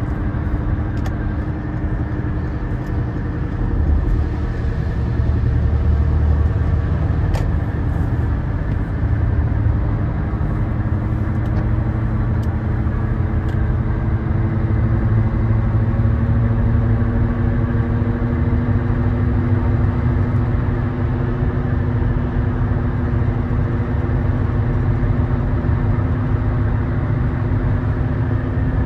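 Car driving at highway speed, heard from inside the cabin: a steady low rumble of engine and tyres on wet pavement, with a faint hum that slowly rises in pitch. A few faint ticks come in the first half.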